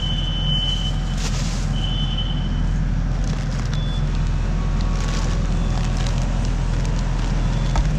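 Steady low machine hum, with a thin high whine during the first couple of seconds and occasional light clicks and rustles of handling.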